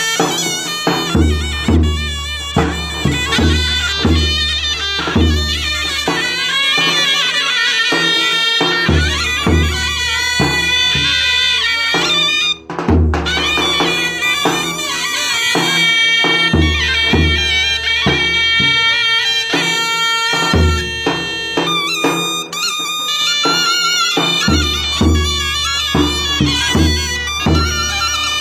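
Two zurnas play a shrill folk melody over the steady beat of a davul bass drum. The music breaks off for a moment about halfway through.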